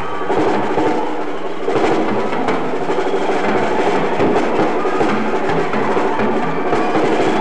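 Live hard rock band playing at full volume with the drums to the fore, in a muddy, lo-fi amateur recording of the show. The band comes in loud just after the start and swells again a little under two seconds in.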